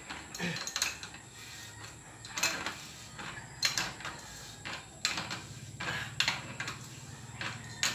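Irregular metal clicks and clinks of hand tools, a bottom bracket tool and an adjustable wrench, working on a bicycle's bottom bracket cup while a new sealed cartridge bottom bracket is being fitted and tightened. The strikes come one or two at a time, about a dozen over several seconds.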